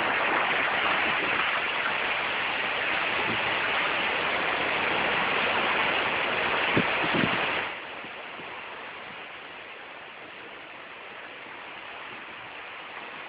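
Heavy storm noise: a steady rushing of rain and wind. It is loud for the first seven or so seconds, with a couple of dull knocks, then drops sharply to a quieter rush.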